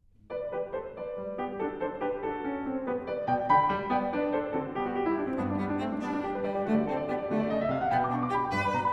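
Background music of piano with cello and other bowed strings, starting about a third of a second in.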